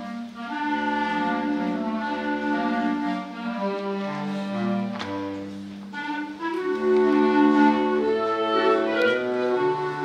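Clarinet ensemble playing a waltz (vals) in sustained chords, with a low bass line moving note by note beneath.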